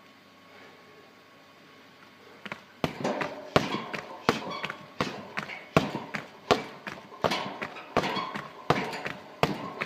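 Muay Thai kicks slamming into a Twins heavy bag, starting about three seconds in and repeating at a steady pace of roughly one every 0.7 seconds, each a sharp slap-thud with a short rattle after it.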